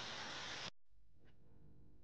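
Hair dryer blowing a steady rush of air over macaron shells to dry their surface skin; it cuts off suddenly less than a second in, leaving quiet room tone.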